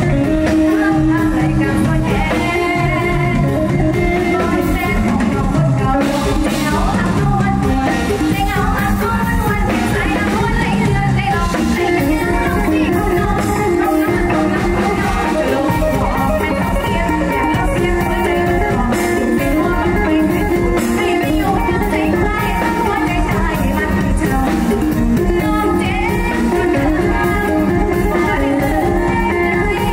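A teenage girl singing into a microphone over a live band with guitar and drums.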